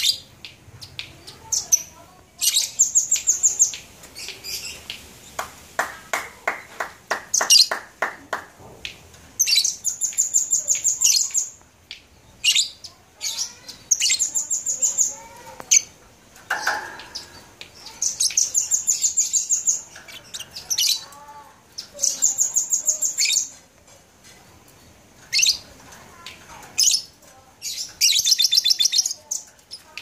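Caged lovebirds singing: bursts of very rapid, high-pitched chirping trills, each a second or two long, repeated with short pauses. A slower, lower run of chirps comes about six seconds in.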